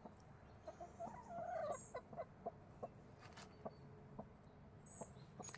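Chickens clucking faintly, with one louder drawn-out call about a second and a half in and scattered short clicks.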